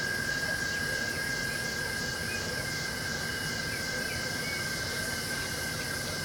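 A night chorus of insects: a steady high shrill tone, with a higher pulsing trill repeating a few times a second. Underneath is the steady rush of the falling water of Iguazu Falls.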